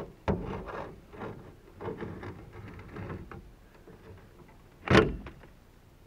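Handling noises in a boat as a rope is worked: irregular scraping and rustling for about three seconds, then one loud knock about five seconds in.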